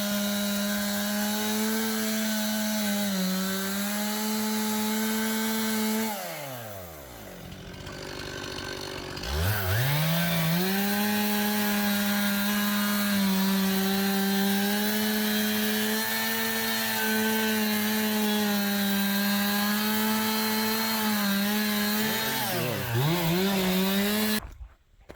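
Chainsaw running at full throttle, cutting wood with its pitch sagging slightly under load. About six seconds in the throttle is released and the engine falls to idle, then revs back up a few seconds later and holds high again, before cutting off abruptly near the end.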